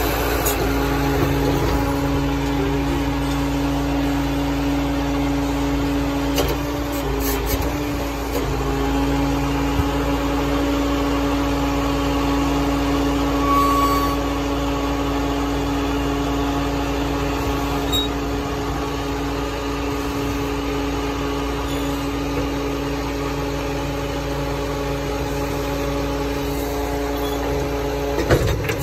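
Volvo skip lorry's engine running with the hydraulics working, as the skip-loader arms are operated from the lever bank to lift the skip. A steady drone whose pitch shifts briefly about seven seconds in and again near the end, as the levers are moved.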